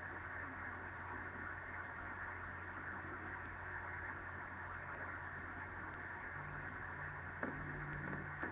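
Steady hiss and low electrical hum from an open microphone line, with one faint click near the end.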